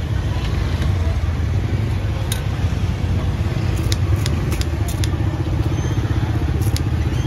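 Small motorbike engine running close by over a steady low rumble of street-market noise, with scattered sharp clicks.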